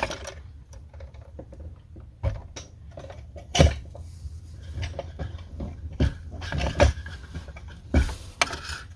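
Irregular clicks, taps and knocks of hard parts being handled and fitted, with a few sharper knocks about three and a half, seven and eight seconds in.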